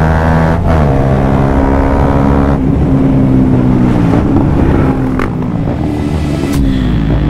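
Motorcycle engine running under way, its note dropping sharply about half a second in, shifting again a couple of seconds later, then rising and wavering as it pulls on.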